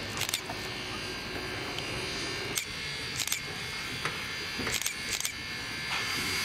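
Camera shutters clicking several times, some single and some in quick pairs, over a steady background hiss.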